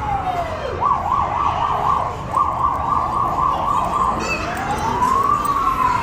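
Siren going from a slow falling wail into a fast warbling yelp about a second in, then back to a slow rising and falling wail near the end.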